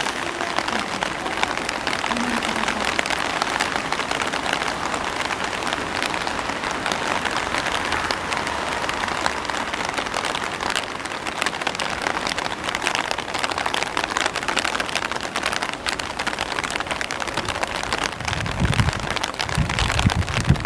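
Steady crackling hiss of rain falling, with low rumbling near the end.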